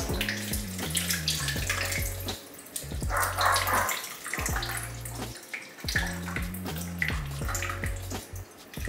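Water poured from a watering can through a houseplant's pot, splashing on the soil and running through, heaviest about three seconds in.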